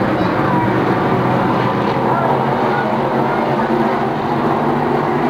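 IMCA stock cars racing on a dirt oval, their V8 engines running hard in a steady, continuous drone, with several engine pitches overlapping and shifting as the cars pass.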